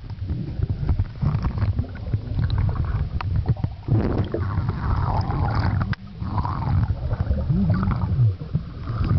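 Muffled low rumble and gurgling of water moving over a camera held underwater, with scattered small knocks and bubbling clicks. The gurgling grows brighter for a few seconds in the middle.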